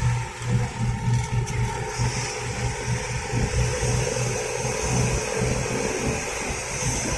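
Bus exhaust with a deep snoring growl ("ngorok"), a low note that throbs about twice a second over steady road noise.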